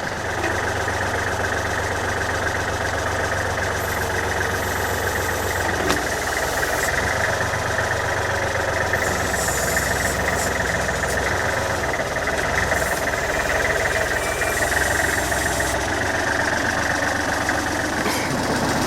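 Backhoe diesel engine running steadily, with a single short click about six seconds in.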